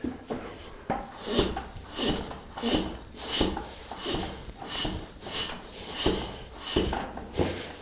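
Bicycle floor pump worked in quick, even strokes, about ten at roughly one and a half a second, each with a hiss of air, pumping into a tubeless studded fat-bike tire through the bare valve. The bead is not sealing and air leaks out, so the tire won't inflate.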